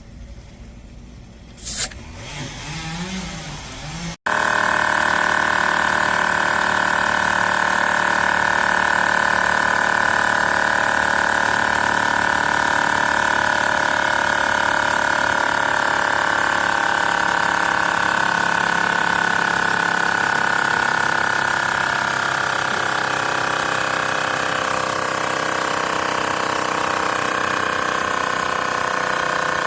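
AstroAI L7 portable electric air compressor running. There is a click about two seconds in, then the compressor starts abruptly about four seconds in and runs with a steady buzzing drone. Its pitch drops slightly in the last third.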